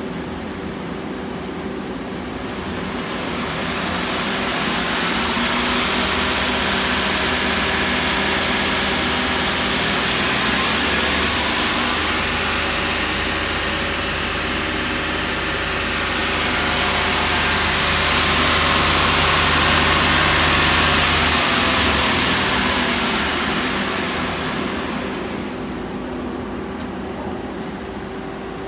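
Okuma ES-L10 CNC turning center running under power, a whirring machine noise over a steady hum that swells twice and eases off near the end.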